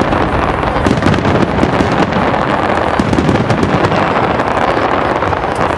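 Aerial fireworks display going off continuously: a dense run of crackles and pops over a steady rumble, with no single bang standing out above the rest.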